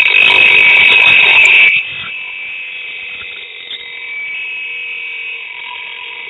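A 400 W Intertool Storm WT-0820 bench grinder with 20 cm wheels grinding the steel edge of a splitting axe. It starts abruptly with loud, harsh grinding for under two seconds, then eases to a quieter, steady high whine as the wheel keeps spinning.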